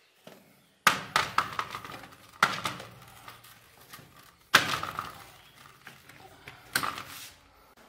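Cucumbers knocking and clattering against each other and a plastic crate as a hand rummages through them, with four sharper knocks about a second or two apart.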